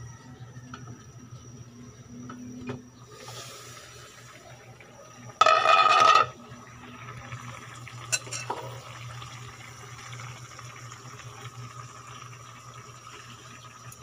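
A pot of squid adobo in its ink simmering in a stainless steel pot. About five seconds in comes a loud, ringing metal scrape lasting about a second, as the pot's metal lid comes off. A short click follows a couple of seconds later, over a steady low hum.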